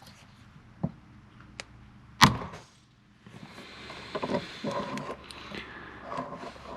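Chainsaw chain breaker pressed down onto a chain rivet: a few light clicks, then one sharp crack about two seconds in as the rivet is pushed out, followed by quieter clinking and rustling of metal chain being handled.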